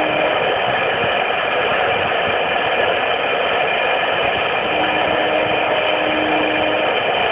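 CNC router spindle running steadily while its bit cuts into a rubber sheet, a constant whirring machine noise. A faint low hum comes in for a couple of seconds in the second half, as the gantry's axes move.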